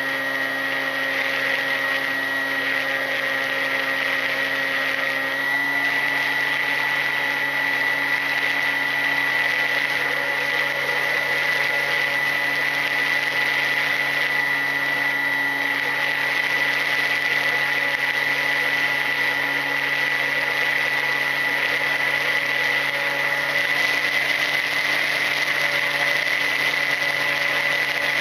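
Electric motor and propeller of a Ranger EX FPV model plane running steadily in flight, a high whine heard from the onboard camera. The pitch steps up slightly about five seconds in.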